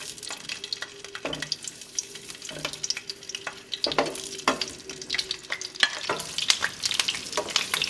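Whole jalapeño peppers searing in hot oil in a sauté pan: steady sizzling with many sharp crackles and pops of spitting oil. There are a few soft knocks as the chiles are laid in and turned with metal tongs.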